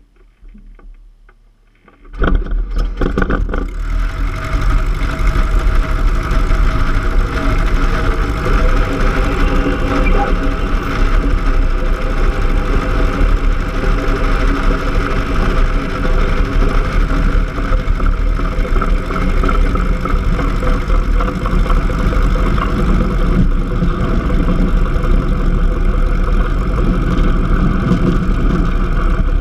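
Cessna 150's Continental O-200 four-cylinder engine and propeller running steadily, heard close up from outside the airframe as the plane rolls along the pavement. It comes in suddenly about two seconds in, after a quieter start with a few faint clicks.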